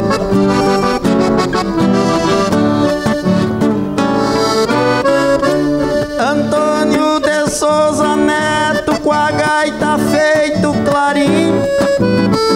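Accordion playing an instrumental interlude between a trovador's sung verses, with quick runs of notes that never break.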